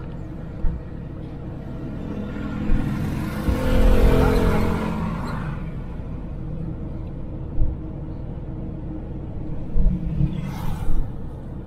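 Steady road and engine rumble inside a Suzuki Jimny driving on a town street, with a few short thumps, typical of the wheels hitting bumps or potholes. Between about 3 and 5 seconds in, a louder engine sound swells and fades, as a vehicle passes close by.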